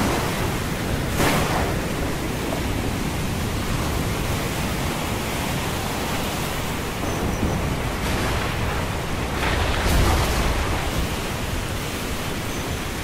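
Storm ambience: a steady hiss of rain and rough sea, swelling briefly about a second in and again around ten seconds, the second swell with a deeper rumble.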